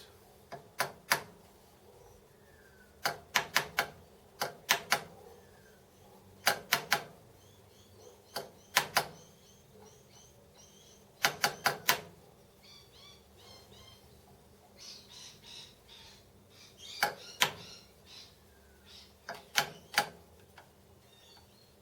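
Sharp taps on metal in quick groups of two to four, repeated every couple of seconds, as a bracket is nudged into alignment.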